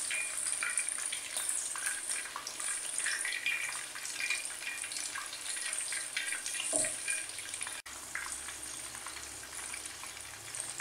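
Batter-coated prawns deep-frying in hot oil in a wok: a steady sizzle with many small crackles. The sound drops out for an instant about three-quarters of the way through.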